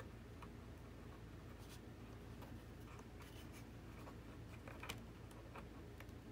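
Faint small clicks and scratches of fingers working a plastic pushrod clevis onto a control horn on the foam tail of an RC model airplane, with one slightly sharper click about five seconds in. A faint steady low hum sits underneath.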